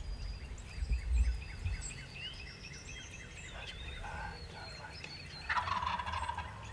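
Wild turkey gobbler gobbling: a quick rattling gobble in the first few seconds and a louder one near the end. A couple of low thumps come about a second in.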